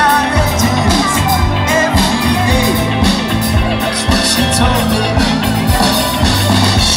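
Live rock band playing loudly: drums keeping a steady beat under bass, electric guitars and a singer's vocals.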